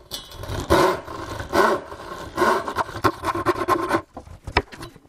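Wooden frame saw sawing into the end of a spruce board on the push stroke, a rasping scrape about once a second. The strokes stop about four seconds in, followed by a few sharp knocks.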